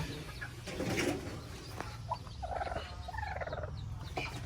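Brooding hens giving short clucking calls, with their newly hatched chicks peeping faintly.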